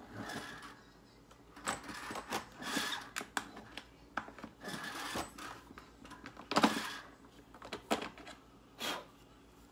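Hand-worked shotshell reloading press crimping a 12-gauge shell: irregular clicks and clacks with several longer scraping strokes.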